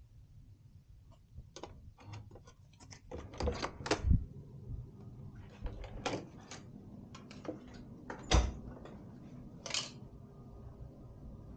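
Hotel room door being unlocked and opened, with a run of clicks and knocks from the lock, latch and handle. About two-thirds of the way through, the heavy wooden door thuds shut, the loudest sound.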